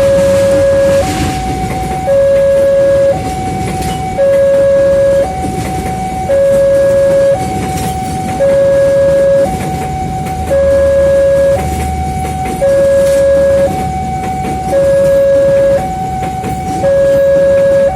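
Electronic two-tone hi-lo warning siren, alternating evenly between a lower, louder tone and a higher one, each held about a second, repeating without a break over a steady background rumble.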